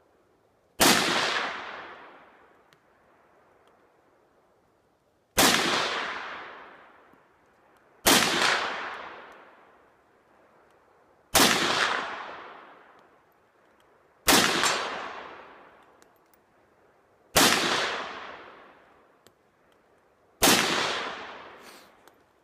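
Seven shots from a Norinco SKS semi-automatic rifle in 7.62x39mm, fired one at a time about three seconds apart. Each crack trails off over a second or so.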